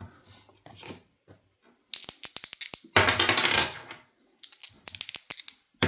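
Dice rattling and clattering on a tabletop: a run of sharp clicks, a dense clatter of about a second, then scattered clicks as they settle.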